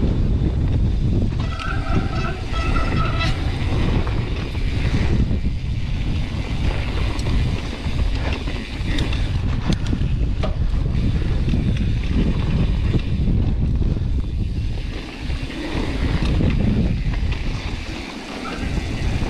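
Strong gusting wind buffeting a GoPro's microphone on a mountain bike descent, mixed with the rattle and knocks of the bike over rough ground. A brief high squeal sounds about two seconds in.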